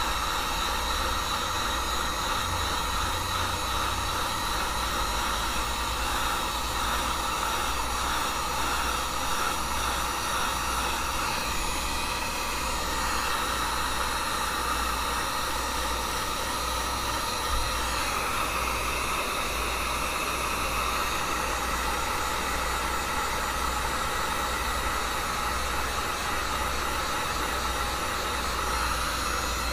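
Handheld hot-air blower running steadily, heating an iPad Air's glass to soften the adhesive that holds it to the frame.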